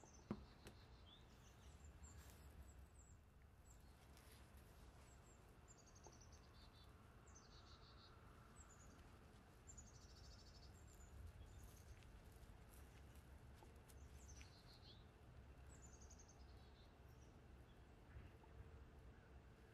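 Faint birdsong: a small bird repeating a short, falling, rapid chirped phrase every second or two, over a low background rumble. A single sharp click just after the start.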